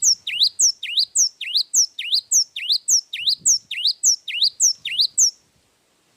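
Gelatik wingko (cinereous tit) singing a fast, unbroken run of identical two-note phrases, about three and a half a second, each a rising note followed by a higher falling note. The song breaks off abruptly near the end.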